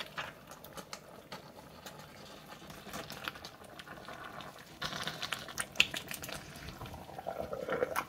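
Thick beef goulash with vegetables simmering in a stainless steel pot, with soft bubbling and popping, while a wooden spoon stirs through the stew. The stirring gets louder and wetter about five seconds in and again near the end.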